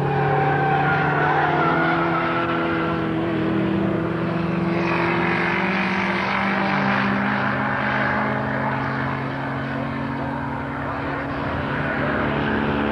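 Race cars' engines running hard on a circuit: a steady, continuous engine note that drops in pitch about six and a half seconds in.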